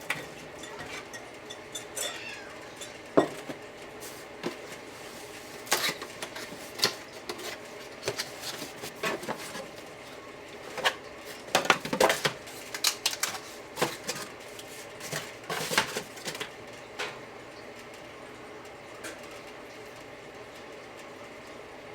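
Irregular clinks, clatters and knocks of metal kitchen parts and dishes being handled on a counter. They are busiest in the middle and die away after about 17 seconds, over a faint steady hum.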